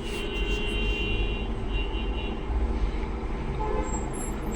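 Steady rumble of passing road traffic, with a thin high whistling or squealing tone for the first two seconds or so.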